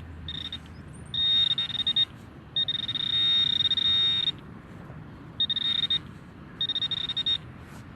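XP Deus metal detector sounding a high-pitched tone five times as the coil sweeps back and forth over a strong target, each tone lasting from about half a second to nearly two seconds. The high pitch matches the strong 78 to 81 reading, the kind given by a well-conducting metal object.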